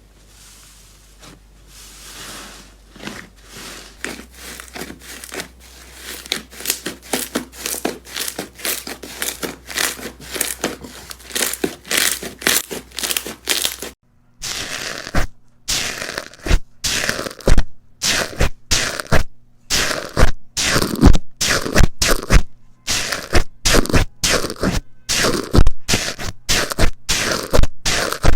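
Slime being pressed and squeezed by hand, giving rapid, sharp crackles and pops. The crackling builds over the first half, then after a brief break a second, louder run of crisp crackling follows.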